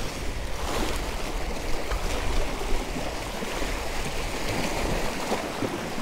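Small waves washing and splashing against the jetty's rock blocks, with wind buffeting the microphone.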